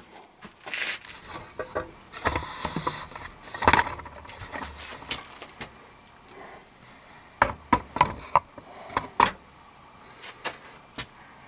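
Handling noise: rustling for the first few seconds, then a quick series of sharp knocks and clicks, as of hard objects being picked up and set down.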